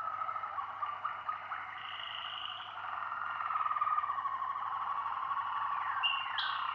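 Waterslager (Malinois) song canary singing a continuous song of rolling, wavering trills. Near the end it breaks into quick falling notes repeated a few times a second.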